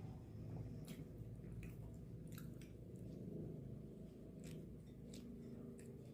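A person chewing food close to the microphone, with a continuous low mouth sound broken by about a dozen short wet clicks.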